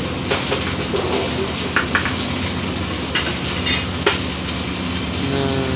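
A steady engine drone with several sharp knocks or clanks scattered through it, and a short pitched sound near the end.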